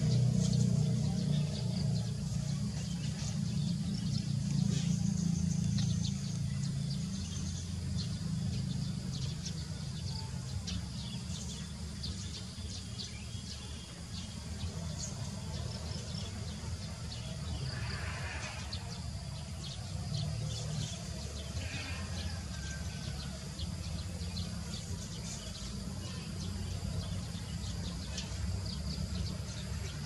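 Outdoor ambience: a steady low rumble, louder in the first few seconds, under many short, high bird chirps scattered throughout.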